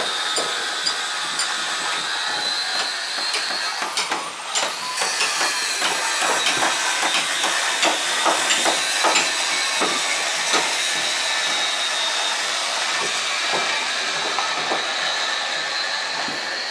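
Boatyard work noise: a steady hiss with a thin high whine, and many irregular knocks and clicks that are thickest in the middle.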